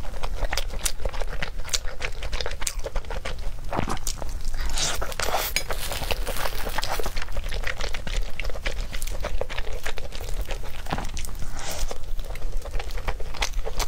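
Close-miked chewing of sweet-and-spicy fried chicken and rice cake from a skewer: many small crunches and wet mouth sounds, irregular and continuous.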